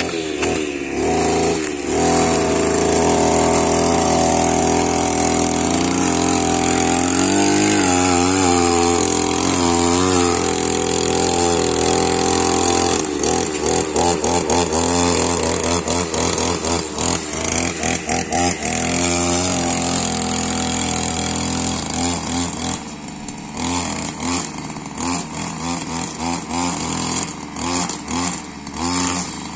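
Petrol string trimmer running, its engine pitch wavering up and down as the throttle is worked, then crackling as the nylon line cuts through grass and weeds. It grows fainter over the last several seconds.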